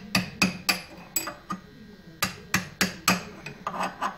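Hammer blows on a steel drift, knocking an old bearing out of the bore of a flanged steel axle part. About ten sharp metallic strikes, roughly three a second, with a short pause a little before the middle.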